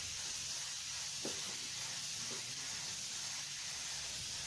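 Gravity-feed spray gun hissing steadily as it lays a thin coat of automotive paint onto a car body panel.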